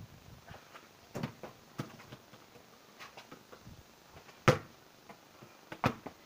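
Several separate knocks of a football (soccer ball) thrown at a basketball hoop, hitting and bouncing. The loudest and sharpest hit comes about four and a half seconds in.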